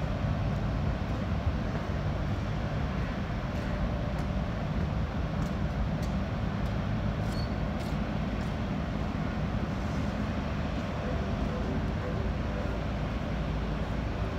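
Steady low rumble of a harbour tugboat and a cargo ship's engines, with water churning under the tug.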